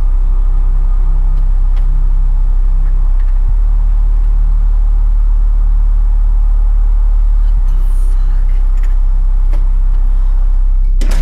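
Deep, steady low rumbling drone, an unbroken horror-film sound bed, with a short sharp swish just before the end.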